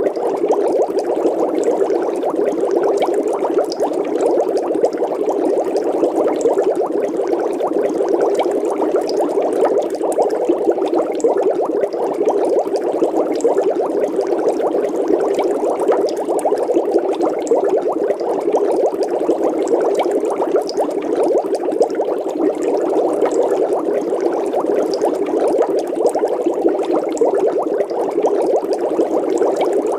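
Water bubbling steadily, a dense stream of small bubbles popping in quick succession with no break.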